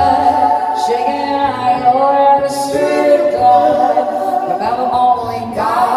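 Live band performing: several singers holding sustained vocal harmonies over short plucked upright bass notes.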